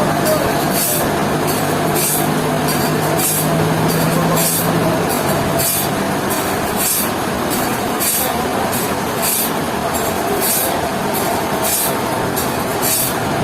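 Sawmill machinery running steadily, a dense mechanical noise with a short high hiss repeating about every three-quarters of a second.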